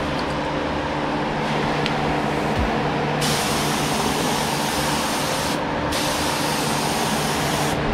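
Air-driven gravity-feed paint spray gun spraying: a steady hiss of air and paint that gets sharper about three seconds in, stops for a moment near six seconds, then sprays again until just before the end, over a steady low hum.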